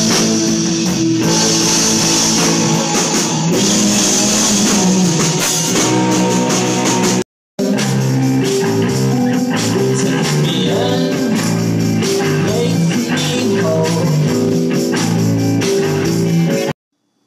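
Live rock band playing loud in a small club: electric guitars, bass and a drum kit. The music cuts off about seven seconds in and starts again at a different passage a moment later.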